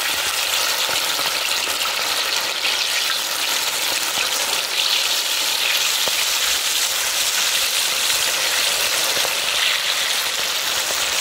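Masala-coated chicken wings deep-frying in a large pot of hot oil: a steady sizzle with fine crackling.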